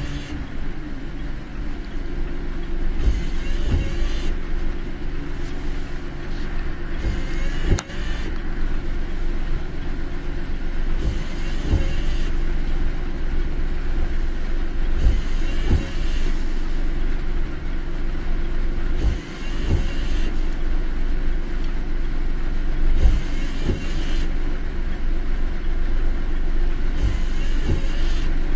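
Steady road and engine rumble heard inside a car's cabin while driving in rain, with a hissing swish about every four seconds, as of the windshield wipers sweeping.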